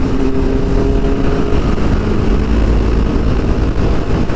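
Kawasaki inline-four motorcycle engine running at speed, with wind rushing over the microphone while riding; a steady engine note fades out about a second and a half in, leaving the wind and road rumble.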